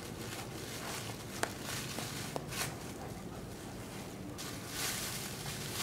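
Thin plastic dog waste bag being worked open by hand: a few faint crinkling clicks, then a longer rustle of the plastic about four and a half seconds in.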